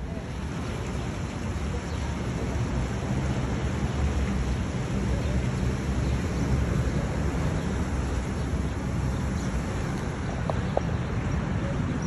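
Steady city street traffic noise, a continuous low rumble from passing vehicles.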